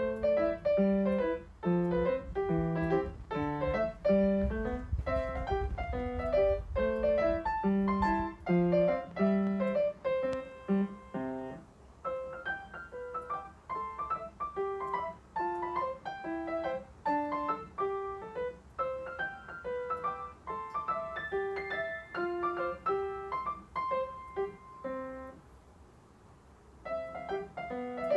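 Background solo piano music, a melody over chords. It gets lighter after about 12 seconds and falls away briefly near the end before resuming.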